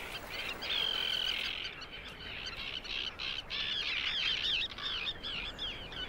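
A nesting colony of terns screaming: many overlapping high calls, with one longer drawn-out cry about a second in, then a fast run of short, arching calls.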